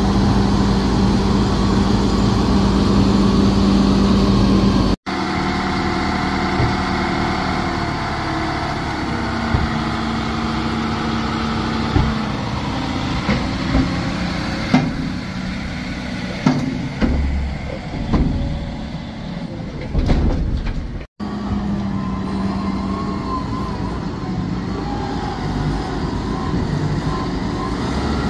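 Big farm tractor engines running steadily while trailers tip silage at the clamp. Knocks and clanks come from the trailer in the middle section, and the sound breaks off abruptly twice as the shot changes.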